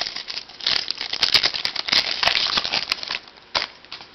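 A foil trading-card pack wrapper crinkling and tearing as it is opened: a dense crackle lasting about three seconds, then one sharp click shortly after.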